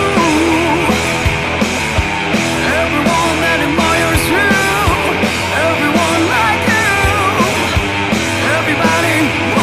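Rock music soundtrack with drums and a bending melodic line over sustained chords.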